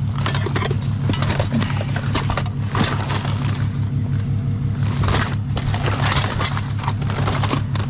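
Scrap being handled and taken apart by hand: repeated clanks, clicks and scrapes, over the steady low hum of an idling vehicle engine.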